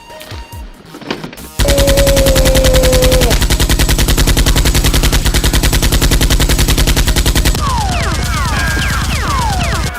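Rapid automatic machine-gun fire sound effect that starts about one and a half seconds in and runs on loud and unbroken. In the last two seconds, short falling whistles sound over the shots.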